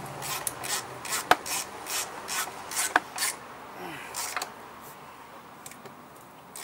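Hand socket ratchet worked in quick strokes, rasping on each return stroke, running down the engine mounting bolts by hand, with a sharp metallic click about a second in and another near three seconds. The strokes stop about four and a half seconds in.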